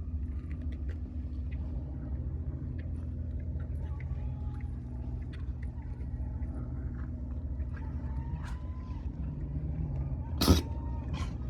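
Steady low engine-like rumble, with a seal pup's single short, sharp sneeze near the end, the loudest sound.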